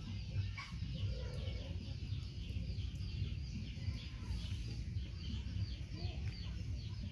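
Chickens clucking, with a steady stream of quick, high falling chirps.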